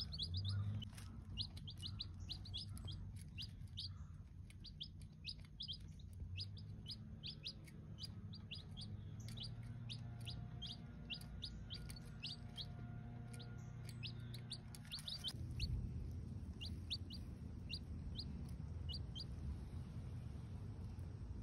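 Baby chicks peeping: a steady run of short, high, falling peeps, about two or three a second, that stops shortly before the end, over a low background hum.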